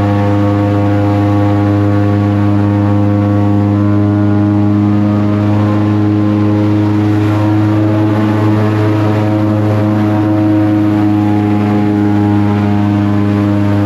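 Airboat's engine and large air propeller running steadily at cruising speed: a loud, even drone on one pitch.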